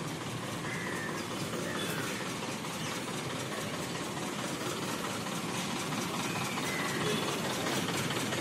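A diesel bus engine idling steadily, with a few faint short chirps above it.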